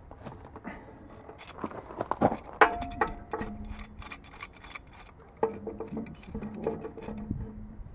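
Metal tools clicking, clinking and knocking against an air compressor tank's check valve fitting as pliers and then a pipe wrench are set on it and worked.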